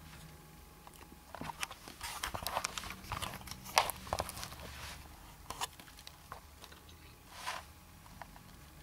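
Handling noise from an open vintage PC case: an irregular run of clicks, taps and rustles, loudest about four seconds in, with a couple of single clicks later.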